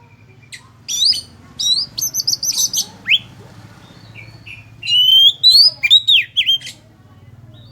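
Oriental magpie-robin (kacer) singing in full voice: quick varied whistles, slurred rising and falling notes and rasping trills, in two loud bursts about a second in and about five seconds in.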